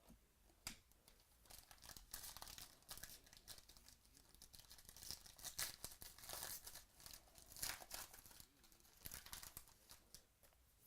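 Faint crinkling and tearing of foil trading-card pack wrappers as packs are opened, with light clicks and rustling of cards being handled.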